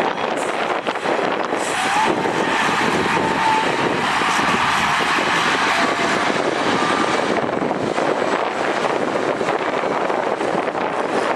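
Heavy earthmoving machinery running steadily, with a few faint short squeals about two to four seconds in.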